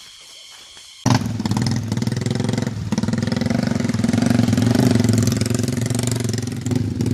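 About a second in, a motorcycle engine comes in suddenly and runs loudly and steadily, labouring as the loaded bike is worked through deep mud. Before it there is only faint forest ambience with steady high tones.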